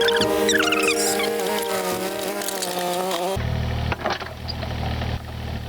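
For about three seconds, held tones with quick high chirping glides, like music or sped-up audio. Then an abrupt cut to a Kubota excavator's diesel engine running with a steady low rumble and a few sharp knocks.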